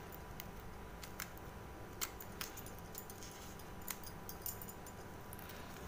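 Faint, irregular crisp clicks and snaps, a few a second, as the bracts of a banana flower are peeled back by hand.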